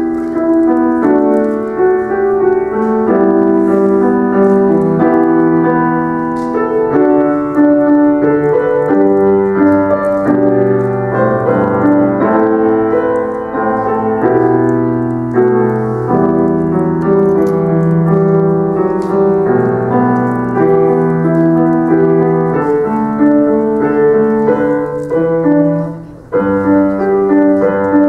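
Solo grand piano playing a Christmas medley, a continuous run of melody over chords, with a brief break in the playing about two seconds before the end.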